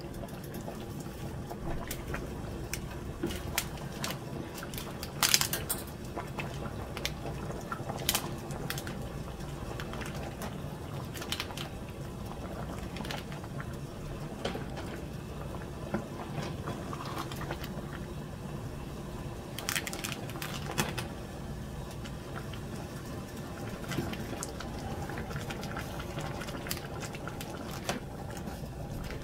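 A pot of tomato sauce with meatballs bubbling at a boil, with occasional sharp knocks and clicks as a wooden spoon stirs dry spaghetti into it.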